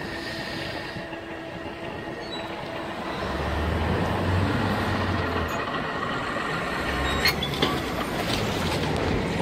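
Level crossing barrier mechanism humming with a steady tone as the barriers rise; the hum stops about three seconds in. A low engine rumble with general noise follows and slowly grows louder.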